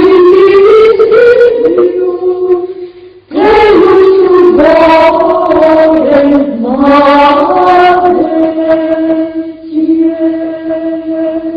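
Unaccompanied voices singing Hispanic (Mozarabic) liturgical plainchant in slow, flowing phrases. There is a brief breath-break about three seconds in, and the melody ends on a long held note.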